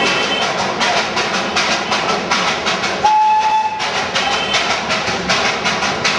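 Darjeeling Himalayan Railway B Class 0-4-0 saddle-tank steam locomotive working uphill, its exhaust giving a quick, even beat of chuffs. About three seconds in, the engine's steam whistle sounds one short, steady blast, the loudest moment.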